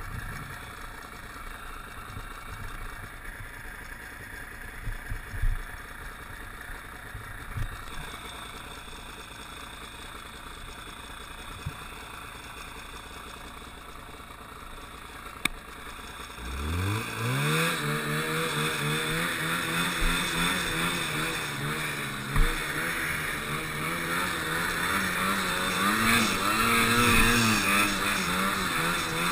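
1984 Yamaha Enticer snowmobile's two-stroke engine, ticking over quietly with a few knocks for the first half, then about halfway the throttle opens, the revs climb sharply and hold high, wavering, as the sled ploughs through deep powder.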